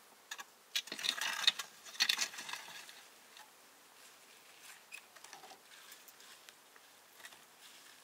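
Metal baking tray scraped and slid into a small clay oven, with clattering noise for about two seconds. A few faint taps and scrapes follow.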